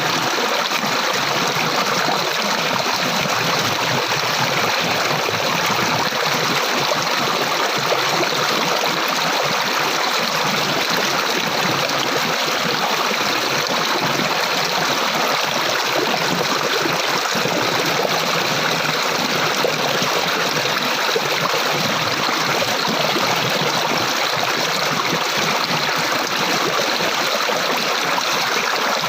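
Flowing water, a steady stream rushing and trickling without letup.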